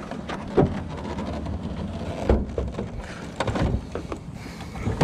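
Flat-screen TV being lifted and set into a loaded pickup truck bed: a few knocks and bumps as it meets the load, over a low rumble of handling noise.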